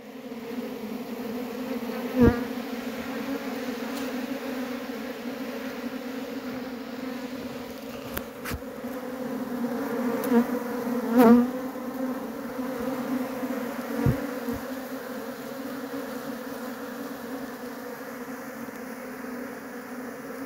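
Honeybee colony buzzing: a steady, dense hum, with a few brief knocks and louder swells as bees come close.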